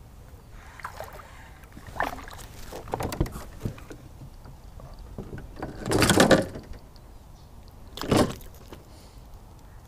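A small largemouth bass being reeled in and landed at a kayak: scattered knocks and clicks of handling on the hull, with a short splashy burst about six seconds in and another about eight seconds in as the fish is brought to the boat.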